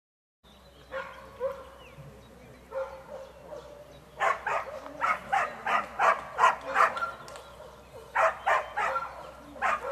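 Dog barking in fast runs of about three barks a second, starting about four seconds in, with a short pause near the end. It is barking at a decoy hidden in a tarp-covered blind, as in a Mondioring search-and-bark exercise.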